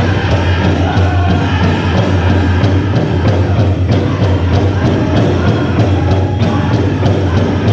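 Powwow drum group singing a chicken dance song: several voices together over a steady beat struck on a big drum.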